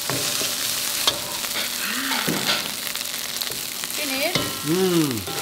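Fried rice sizzling in a hot wok while a ladle stirs and scrapes it, with scattered clicks of the ladle against the pan. A person's voice sounds briefly near the end.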